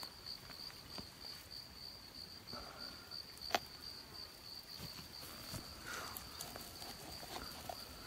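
Faint, steady, high-pitched insect trill, with a few light knocks and one sharp click about three and a half seconds in as a roasted duck is lifted from a stone oven onto a plastic cutting board.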